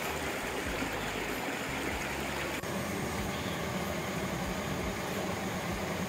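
Steady rushing of a rocky mountain stream, water running over boulders and small cascades; the sound shifts slightly in tone a little under halfway through.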